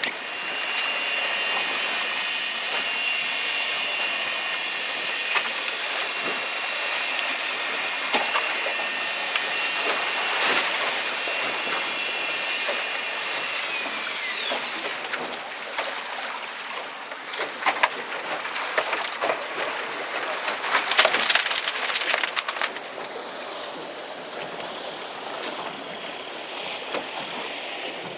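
Boat engine running steadily with a high whine over water and hull noise. About fourteen seconds in, the whine drops in pitch and fades as the engine slows. Scattered knocks and clatter follow over splashing water.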